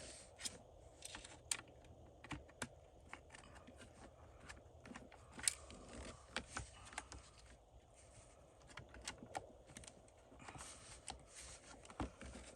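Faint, irregular small clicks and taps of a plastic multimeter case being handled as its battery compartment is pressed together, with the loudest click about five and a half seconds in.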